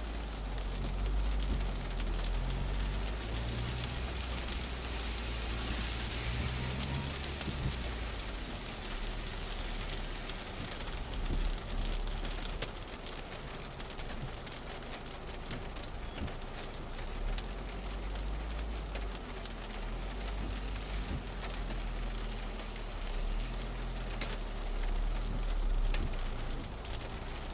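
Heavy rain pelting a car's roof and windscreen, heard from inside the car, with a low rumble underneath and scattered small raindrop ticks.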